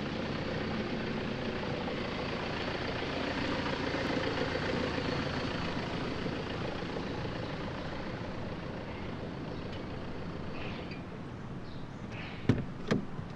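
A car driving past on a dirt track: its engine and tyres are loudest about four seconds in, then fade as it pulls away and stops. Near the end, two sharp knocks about half a second apart.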